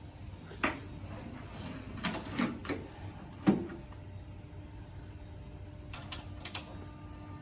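Scattered knocks and clicks of hands working on a rack being assembled with screws and an Allen key, a few single taps and a short cluster, the loudest knock about three and a half seconds in.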